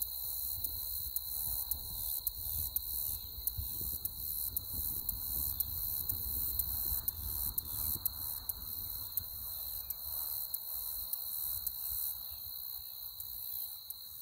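Outdoor field ambience: a steady high-pitched insect trill with repeated short ticks and chirps, over a low, uneven rumble of wind on the microphone.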